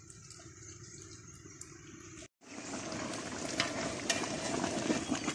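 A large pot of mutton biryani, the rice simmering in its liquid to cook off the water: faint at first, then after a sudden break about two seconds in, a steady bubbling hiss with many small crackles.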